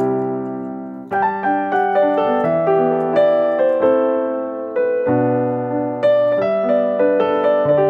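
Background piano music: a gentle melody over chords, each note struck and then fading, with a new chord about every second.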